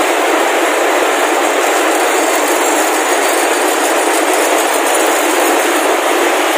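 Loud, steady din of rows of spinning frames running in a mill hall, an even mechanical noise with no distinct beats.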